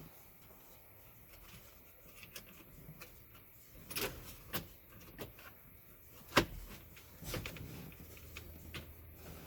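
Scattered sharp clicks and knocks of car parts being handled and fitted back together by hand, with a few faint taps between them. The loudest knock comes a little past the middle.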